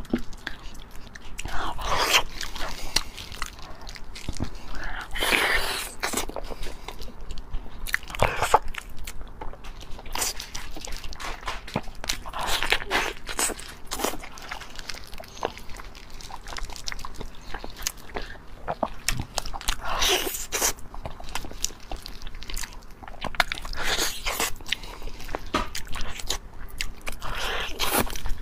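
Close-miked eating of a braised pig's trotter: wet, sticky biting and tearing of the gelatinous skin and meat, and chewing, in bursts every few seconds with short sharp crunches among them.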